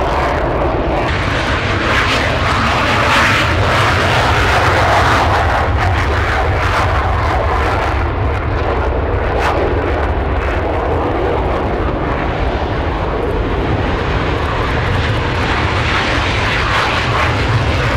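Twin-turbofan F-15 Eagle fighters at take-off power: a loud, steady jet noise with a deep rumble. One jet climbs away, and the next runs down the runway and lifts off near the end.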